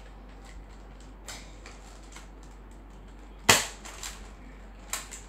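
Plastic clicks and knocks from a modular Nerf toy blaster being taken apart, with one sharp, loud plastic snap about three and a half seconds in and a smaller one near the end.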